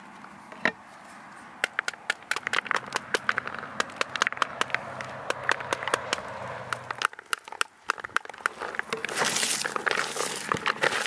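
Pomegranate seeds dropping into a plastic bowl as the fruit is broken apart by hand, a quick run of small sharp clicks. Near the end, hands squeezing and mixing sliced onions with the seeds in the bowl make a denser crinkling rustle.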